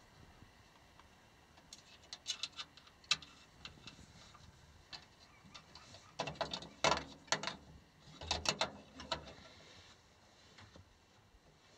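Small metal clicks, knocks and rattles of a volt gauge and its sheet-metal backing bracket being handled and pushed into a steel dash panel. They come in two clusters, the louder one starting about six seconds in.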